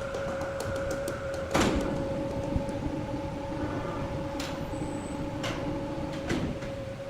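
Wood-cutting saw machinery running with a steady whine. About one and a half seconds in there is a loud knock, and a second, lower tone joins and holds until near the end, with scattered clicks throughout.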